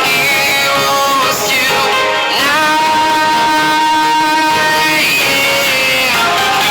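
Background music: a pop song with guitar and a singing voice, one long held note in the middle.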